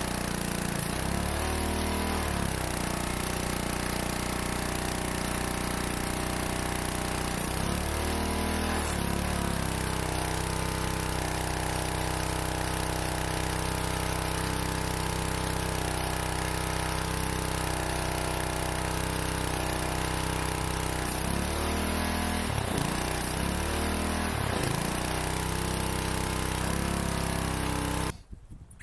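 Gas pressure washer's small engine running steadily on its first run after sitting unused for about 15 years. Its speed dips and recovers a few times near the start, once about a third of the way in, and several times near the end. The sound cuts off suddenly just before the end.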